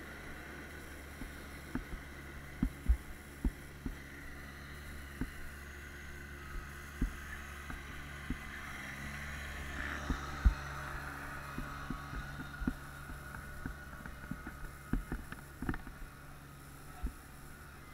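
Dirt-bike engines running faintly at a distance, their pitch wavering slowly up and down over a steady low hum, with scattered short knocks and clicks.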